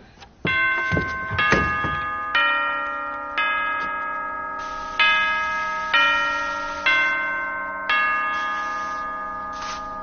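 Bell chimes playing a slow melody: about eight notes struck roughly a second apart, each ringing on and fading before the next, like a clock chiming.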